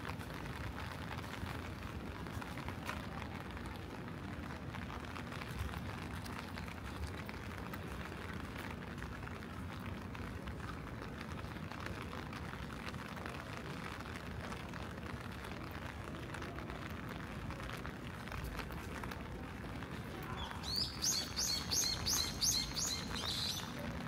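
Steady hiss of rain and street ambience. Near the end a small bird sings a quick run of about eight high, repeated chirps, about three a second, lasting some three seconds.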